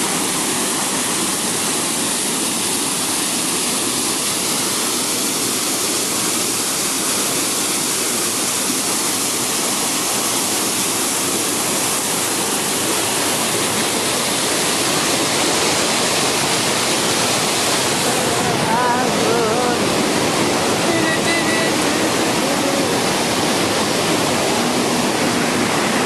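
Waterfall of white water pouring over rock ledges: a steady, full rushing roar.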